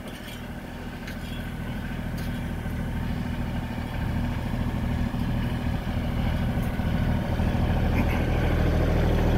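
Kubota L3010 compact tractor's diesel engine running at a steady idle, getting steadily louder as the tractor and microphone come closer together.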